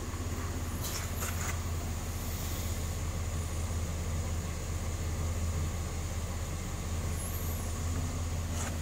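2008 Chevrolet Impala LT's 3.5-litre V6 idling steadily, heard from behind at the tailpipe as a low, even exhaust hum.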